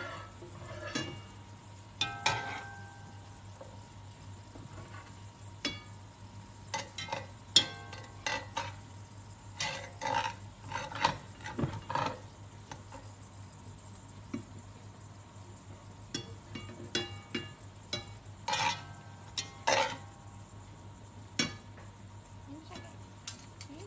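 Metal spoon and slotted spatula knocking, scraping and clinking irregularly against an enamel pot as fried chicken pieces are lifted out of the oil, some strikes ringing briefly. A faint sizzle of hot oil runs underneath.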